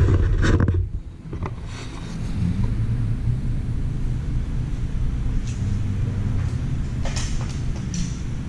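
Camera being handled and set down with a brief rustling clatter, then a steady low workshop rumble with a few light clicks and knocks of tools.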